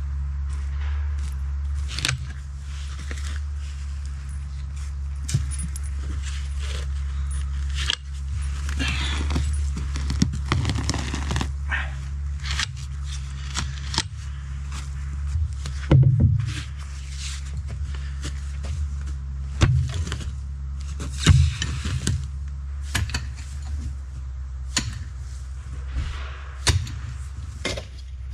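Shovel digging in stony, rooty soil: irregular scrapes and sharp clinks of the blade against stones, the loudest strikes about halfway through and again a few seconds later, over a steady low hum.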